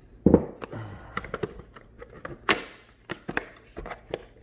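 The cardboard retail box of an AMD Ryzen 5 3600 processor being opened and handled by hand. There is a loud thunk about a quarter second in, another sharp knock about two and a half seconds in, and scattered small taps and clicks between.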